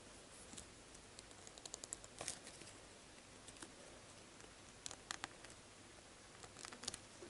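Faint clicks and rustles of fingers handling a small plastic LOL Surprise doll and working tiny clothes onto it, in a few short clusters about two seconds in, around five seconds and near the end, over a low room hiss.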